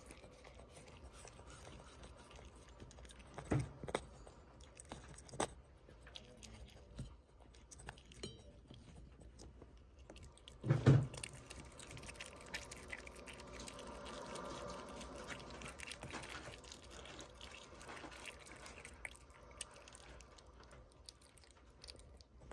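Opossum chewing and crunching snails in their shells, with sharp clicks and knocks now and then. The loudest knock comes about halfway through.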